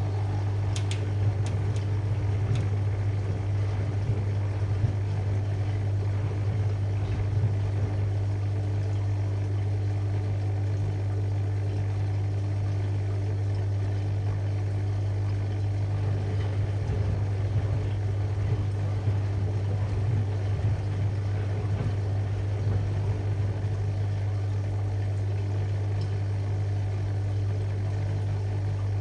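AEG Lavalogic washing machine filling for the final rinse while distributing, its drum turning steadily: a constant motor hum with a steady higher tone over it. A few sharp clicks sound in the first few seconds.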